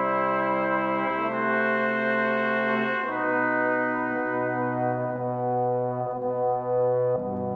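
Slow background music of long held chords, changing about a second in, again near three seconds and once more near the end.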